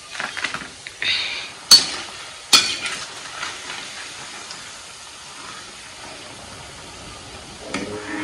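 Pakodi deep-frying in hot oil in a kadhai, sizzling steadily, while a metal slotted ladle stirs and scoops them. The ladle knocks sharply against the pan twice, about two seconds in.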